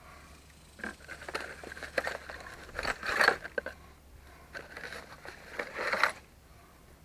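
Irregular clicks and short scrapes of the selectable locking hub assembly being handled, the loudest cluster about three seconds in and another around six seconds.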